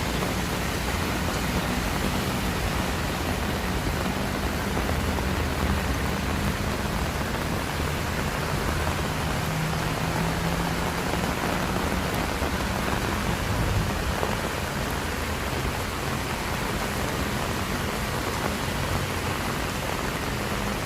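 Steady heavy rain falling, an even hiss of water at a constant level, with a faint low hum underneath.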